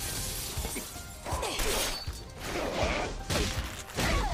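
Anime fight soundtrack: music under a series of sudden crashing impacts, coming about once a second.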